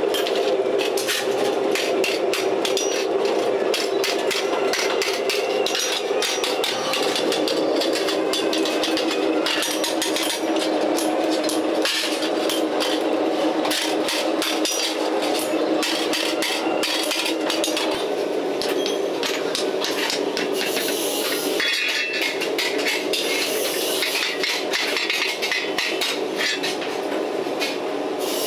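Hand hammers striking sheet-steel shovel blanks, fast and continuous with several blows a second, over a steady hum.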